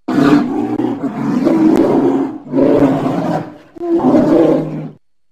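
Polar bear roaring in three long, low calls, the first the longest, with short breaks between them; the last cuts off suddenly about five seconds in.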